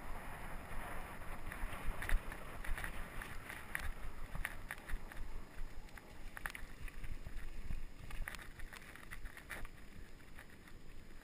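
Mountain bike riding over a bumpy dirt-and-grass singletrack. Wind buffets the microphone, the tyres rumble, and short clicks and rattles from the bike come at irregular intervals.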